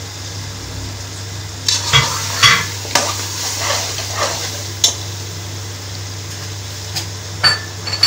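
A metal spatula stirs and scrapes masala and mutton around an aluminium pot in sizzling oil, with a handful of scrapes and knocks, most of them in the first three seconds. A steady low hum runs underneath.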